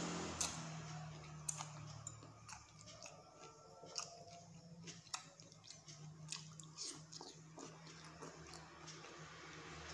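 A person slurping and chewing spicy soup noodles, heard as many short, irregular wet clicks and smacks of the mouth.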